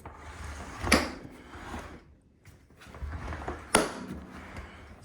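Plastic handling noise with two sharp clacks, about three seconds apart, as an AC power cord is fitted to the connector on the back of a Dometic CFX3 portable compressor fridge.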